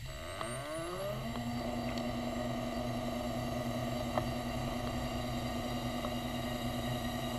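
Electric motor of a diver's underwater scooter spinning up, its whine rising in pitch over about a second and then running at a steady pitch, heard underwater.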